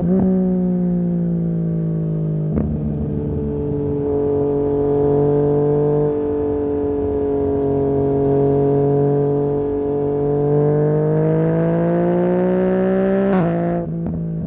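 2020 Yamaha MT-09's inline-three engine through a Barker full-system exhaust, pulling under load with its note slowly rising. Brief breaks in the note near the start, about two and a half seconds in, and near the end, where the pitch drops sharply.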